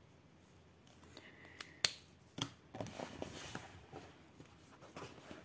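A few sharp clicks from handling a felt-tip marker and a coloring book, the loudest about two seconds in, followed by lighter clicks and paper rustling.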